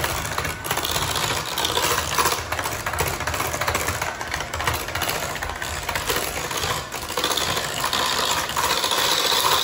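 Electric hand mixer running steadily, its beaters creaming butter and sugar in a ceramic bowl and knocking against the bowl now and then.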